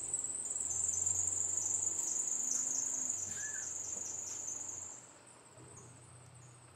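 Crickets chirping in a steady high-pitched chorus, with the low hum of a minivan's engine as it drives away; both drop off sharply about five seconds in.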